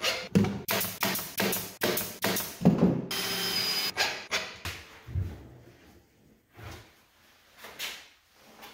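Cordless impact driver hammering as it drives screws through plywood, in short rapid rattling runs for about the first four seconds. It is followed by a few quieter wooden thuds and knocks.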